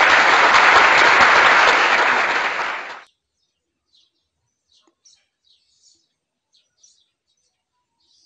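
Loud, dense crackling noise that cuts off abruptly about three seconds in, leaving near silence with a few faint, high bird chirps.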